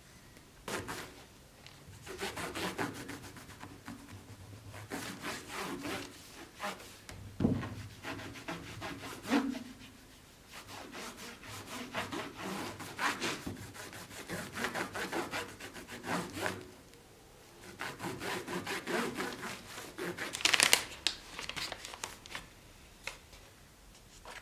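Wood being worked by hand, a run of irregular rubbing and scraping strokes in bursts with pauses between. A few sharper knocks come in, and the loudest burst is near the end.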